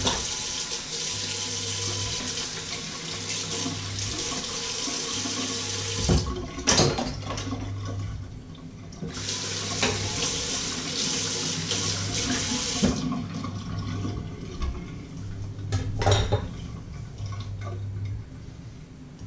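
Kitchen tap running into a stainless-steel sink in two spells, with knocks of things being handled in the sink in between and after. Underneath, a low hum pulses on and off about once a second.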